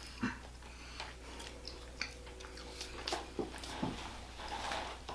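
Quiet chewing of a mouthful of cherry pie, with small scattered mouth clicks and soft smacks.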